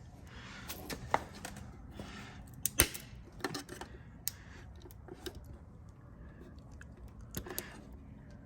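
Scattered clicks and scrapes of plastic as an LED licence-plate light is worked into its tight-fitting housing in the bumper, with soft rustling in between; the sharpest click comes a little under three seconds in.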